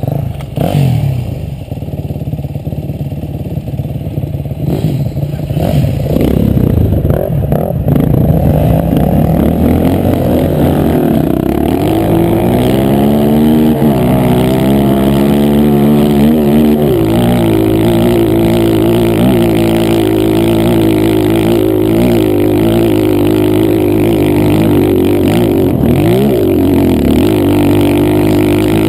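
Dirt bike engine heard up close from on the bike, revving under throttle while riding a trail. Rough and noisy at first, then its note rises and settles, dipping briefly a few times as the revs drop and climb again.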